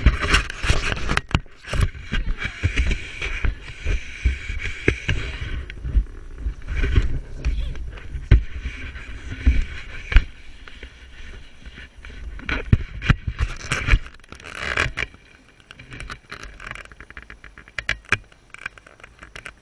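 Camera handling noise: irregular knocks, scrapes and rumble as the camera is carried and jostled about, with a steady hiss through the first five seconds or so.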